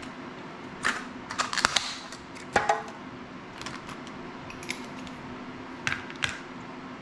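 Small hand tools and metal drone parts clicking and clattering against a tabletop as they are picked up and put down: a cluster of sharp clicks in the first three seconds and two more near the end, over a steady low hum.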